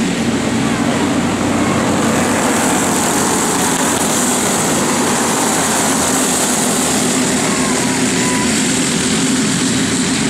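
Racing go-kart engines running steadily and loudly.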